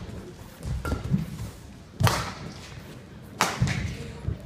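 Badminton racquets striking the shuttlecock during a rally: two sharp hits about a second and a half apart, with players' shoes thudding on the court in between.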